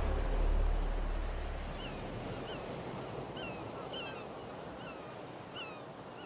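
Sea surf washing with a steady hiss while the tail of a low musical drone fades out over the first two seconds. From a couple of seconds in, a bird calls over and over in short, downward-sliding notes, and the whole sound slowly fades.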